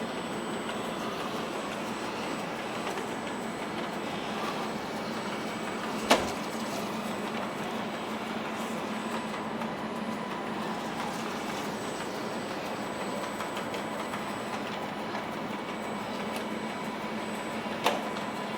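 Chuwi ILIFE V7S robot vacuum cleaner running, a steady whir from its suction fan and brushes. Two sharp knocks, about six seconds in and near the end, are the loudest sounds.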